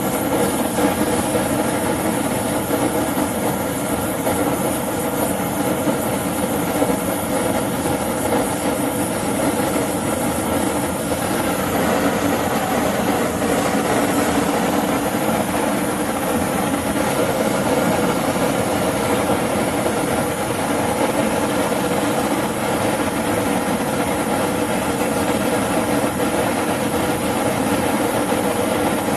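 High-temperature LPG/propane torch burning steadily at full bore, heating a boiler joint for silver soldering.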